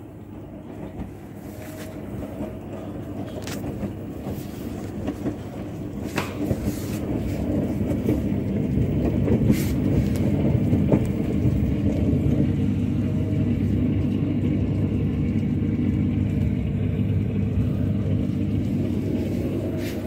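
IFB Executive Plus front-loading washing machine running: a steady low hum and rumble with several held tones, growing louder over the first eight seconds or so and then holding steady. A few light knocks sound over it.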